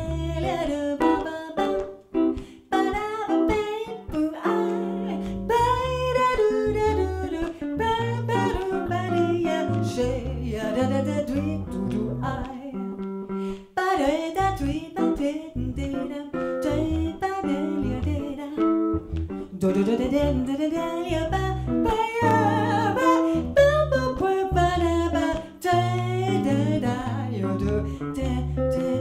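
A woman singing into a microphone over an archtop jazz guitar playing chords and bass lines: a jazz standard performed by voice and guitar.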